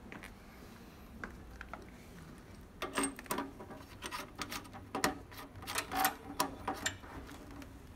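Irregular clicks, knocks and light clatter of equipment parts being handled and connected, clustered from about three to seven seconds in.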